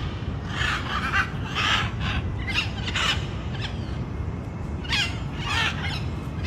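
Bird calls: a run of short, repeated calls, several of them bending in pitch, over a steady low background noise.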